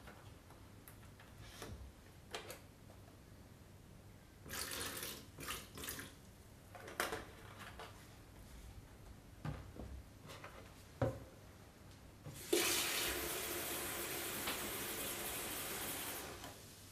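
Water running in a steady rush for about four seconds near the end, cutting off fairly abruptly. Before it come scattered clicks and knocks, plus a few short noisy bursts.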